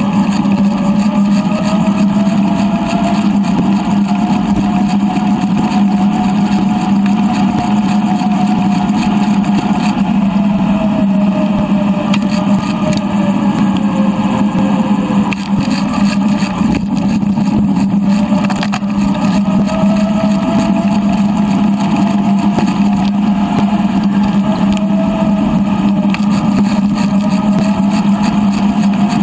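Wind and tyre noise from a bicycle ride, recorded on a GoPro and played back three times faster, so it comes out as a steady motor-like hum. A whine above it slowly rises and falls in pitch, dipping about halfway through.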